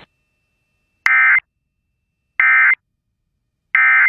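Emergency Alert System end-of-message signal: three short, evenly spaced bursts of SAME digital data tones (the "NNNN" code), each about a third of a second long. It marks the end of the alert message.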